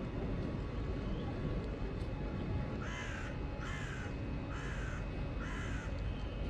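A crow cawing four times, about a second apart, over steady low background noise.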